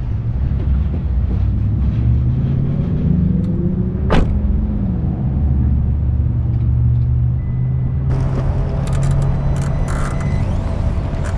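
2023 Chevy Bolt EUV rolling: a steady low rumble, with a sharp creak from a wheel about four seconds in and a few more short ones near the end. The owner puts the creaking down to broken anti-click washers on the wheels.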